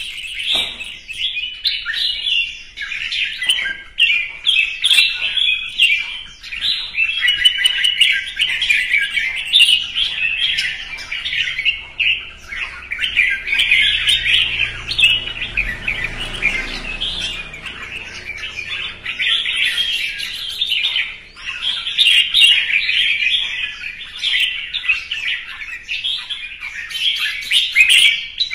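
Red-whiskered bulbul singing its competitive fighting song, a near-continuous stream of quick, bright chattering phrases with only brief breaks.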